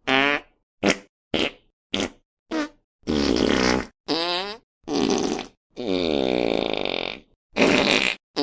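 A string of fart sound effects, about nine in a row with brief silent gaps between them. Four short quick ones come first, then longer, drawn-out ones, the longest lasting about a second and a half near the end.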